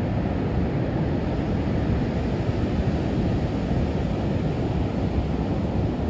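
Ocean surf breaking offshore and washing over a flat sandy beach, a steady rush with no single wave standing out, with wind buffeting the microphone.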